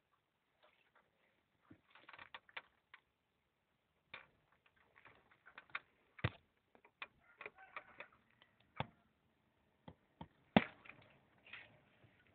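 Irregular clicks, taps and rustling from wiring looms, plug connectors and plastic parts being handled, with the loudest knock about ten and a half seconds in.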